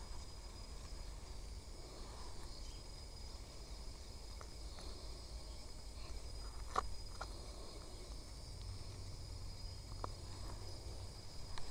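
Steady, high-pitched chirring of insects in the vegetation, with low rumbling underneath and a few sharp clicks near the middle and again near the end.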